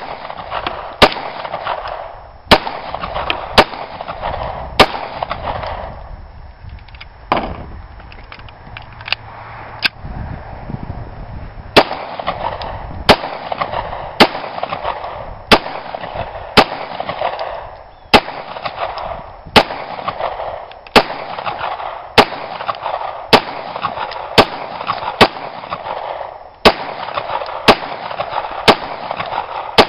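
Beretta M9 9mm pistol fired shot after shot at a steady pace of roughly one shot a second, with a pause of several seconds after the first five shots before the firing resumes.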